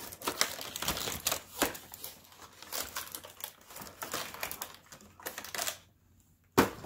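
Cardboard advent calendar being handled and one of its doors opened: rustling, crinkling and small clicks of cardboard packaging, then a single sharp knock near the end.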